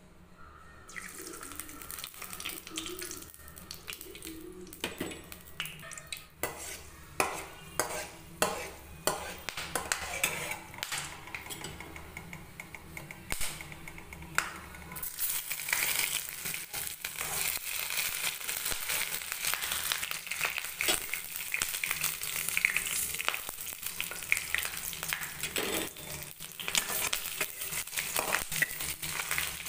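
Whole spices sizzling in hot oil in a steel kadai, with a steel ladle clicking and scraping against the pan. The sizzle grows louder and denser about halfway through.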